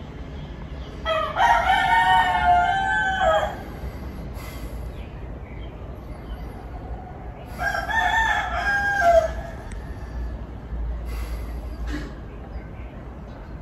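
Rooster crowing twice: two long crows of about two seconds each, one starting about a second in and the other about halfway through.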